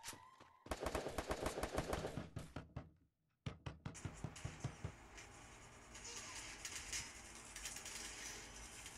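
Rapid automatic gunfire from a mobile shooting game on a phone, cutting out for a moment about three seconds in, then scattered shots over a steady hiss.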